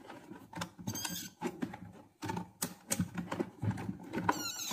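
Clicks and taps of a multimeter and its test probes being handled while a blender's power plug is tested, mixed with a few brief high-pitched squeaks.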